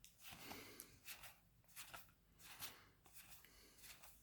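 Faint, scattered rustles of a booster pack's foil wrapper and trading cards being handled, several soft scrapes over a few seconds.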